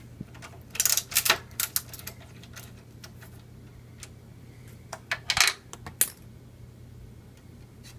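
Small metal parts clicking and clinking in a few short clusters, about a second in and again around five to six seconds in, over a faint steady low hum.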